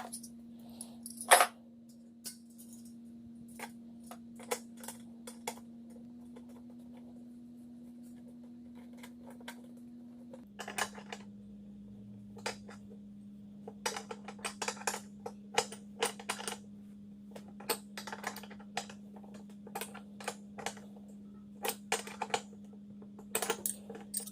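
Scattered light metallic clicks and clinks of a wrench and compressor fittings being handled and tightened, over a steady low hum that drops slightly in pitch about ten seconds in.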